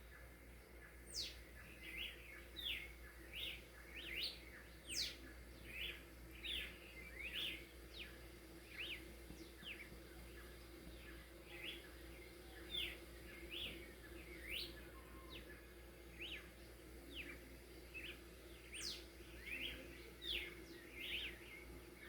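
Birds calling at dawn: a steady run of short, sharp chirps, one after another, some sweeping quickly up or down in pitch. Underneath is a faint steady low hum.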